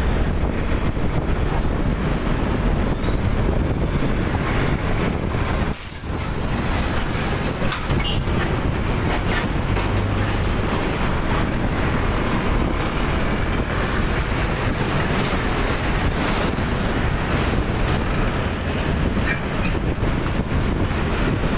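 Steady wind buffeting and road noise on a camera microphone riding along in traffic, with engine and tyre rumble mixed in. The noise drops out briefly about six seconds in, then returns with more hiss.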